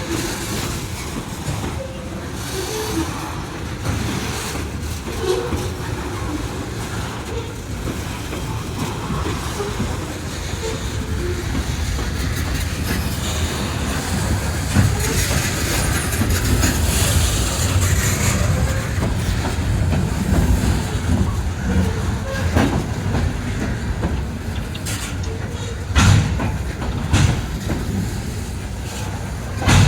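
Loaded coal train's hopper cars rolling past with a steady heavy rumble, the wheels clacking over rail joints every few seconds.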